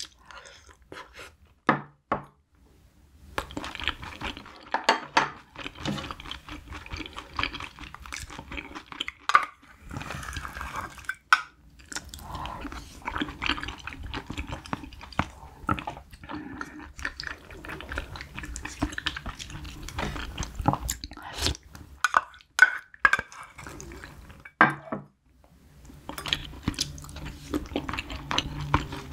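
Close-miked chewing of spicy braised cutlassfish and rice: wet mouth sounds with brief pauses. Sharp clicks of chopsticks and a wooden spoon against a stainless steel rice bowl and the pan come through now and then.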